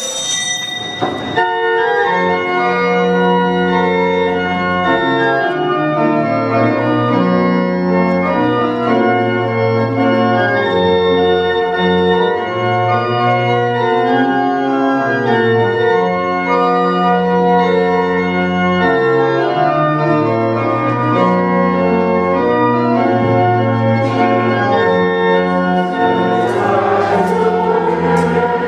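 Church pipe organ playing a slow passage of held chords, the notes changing every second or two.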